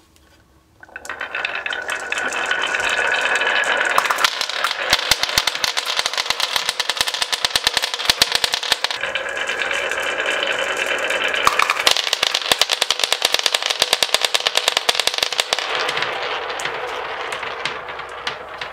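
Dozens of marbles rattling down a HABA wooden double slope's wavy groove, clicking rapidly against one another and the wood in a dense, continuous clatter that starts about a second in and thins out near the end as they spill off the track.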